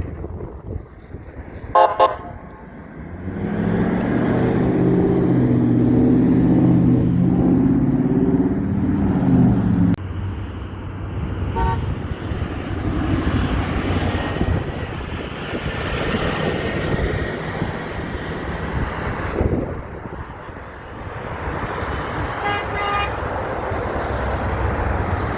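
A big truck's air horn blowing one long steady low chord for about seven seconds, cut off abruptly, after a brief sharp toot about two seconds in. Passing traffic follows, with short higher-pitched car horn toots near the end.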